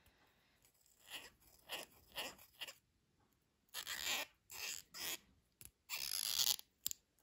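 Cotton swab scrubbing in the pivot hole of a folding knife's handle scale and steel liner: a series of short, faint scratchy rubs, the strokes growing longer in the second half. The swab is working grit of beach sand out of the pivot area.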